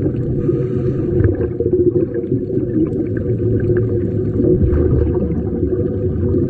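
Underwater recording: a steady, muffled low rumble with faint bubbling from the air-fed sea-walking helmets.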